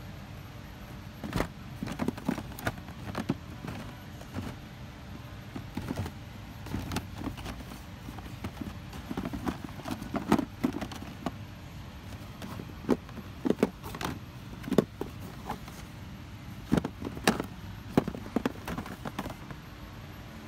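Plastic blister-packed toy cars being handled and flipped through on a display rack, the card-backed plastic packs clacking against each other in irregular clicks and knocks, over a steady low hum.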